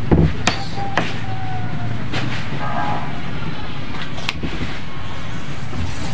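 A steady low rumble with a few sharp knocks, about half a second and a second in and again past four seconds.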